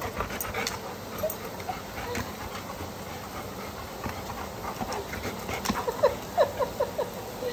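Dog whining: faint short whimpers early on, then a quick run of four or five short whines about six seconds in, each dropping in pitch. Scattered light clicks sound throughout.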